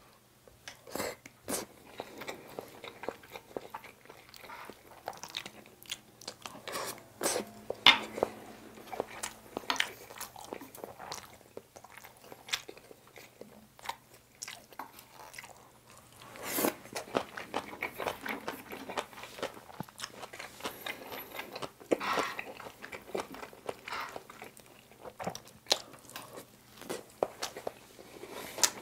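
Close-miked eating sounds: a person chewing mouthfuls of soy sauce egg fried rice and biting into crunchy napa cabbage kimchi. Wet chewing with sharp crunches and clicks at irregular intervals.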